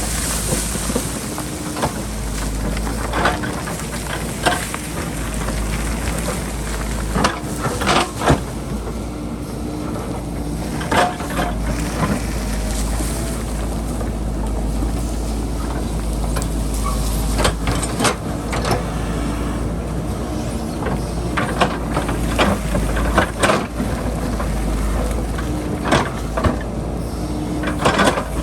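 JCB backhoe loader's diesel engine running steadily under load, with repeated knocks and scrapes as the bucket digs into rocky hillside soil.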